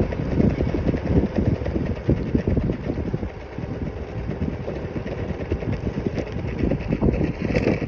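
Wind buffeting the phone microphone and a steady rumble of small scooter wheels on asphalt while riding a stand-up scooter. A brief brighter hiss comes near the end.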